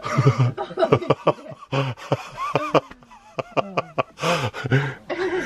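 A person laughing in a string of short bursts, with breathy gasps between them.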